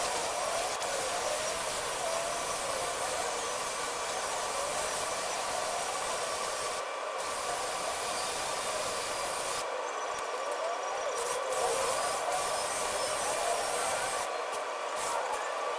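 Small motor running steadily under a rasping hiss, its pitch wandering a little.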